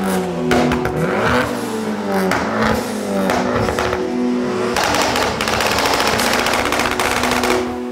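Abarth 595 Competizione's turbocharged four-cylinder engine revving hard, its exhaust crackling with rapid pops and bangs between the rising and falling revs. The loud engine sound cuts off near the end.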